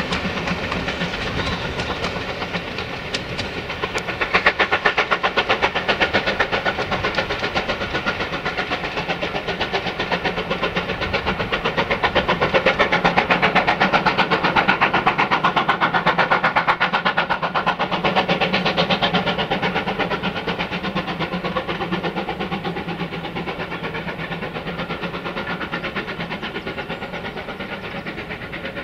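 Steam locomotive hauling a passenger train, its exhaust beating in a rapid, even rhythm. It grows louder a few seconds in, then slowly fades as the train draws away.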